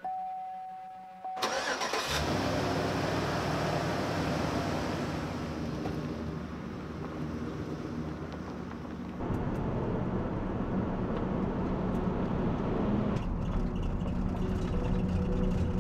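A brief steady tone and a click, then a van's engine is cranked and starts about two seconds in and runs steadily. It grows louder about nine seconds in as the van gets under way.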